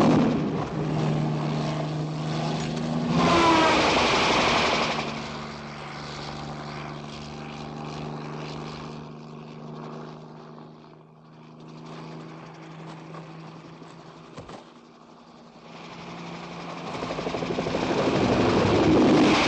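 Bell 47 piston-engined helicopter flying low, its engine and rotor running steadily. It swells loud as it sweeps close at the start, again around four seconds in and once more near the end, and is fainter in the middle.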